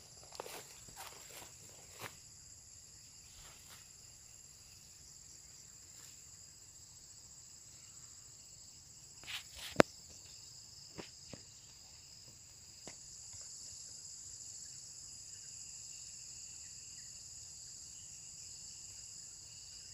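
Steady high-pitched chorus of dusk insects, growing a little louder about two-thirds of the way through. A few footsteps through grass in the first two seconds, and a short cluster of sharp clicks near the middle, one of them the loudest sound.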